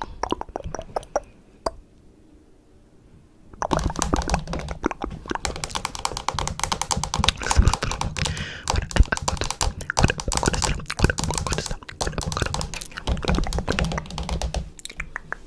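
Rapid, dense tapping and clicking, close up, with a quiet pause of about two seconds near the start before it resumes.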